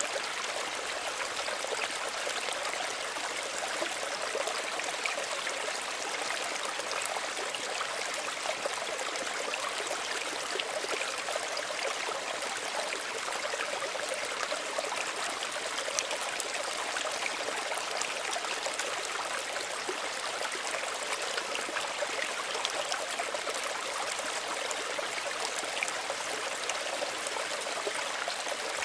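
Small stream running steadily over stones, a continuous splashing and trickling.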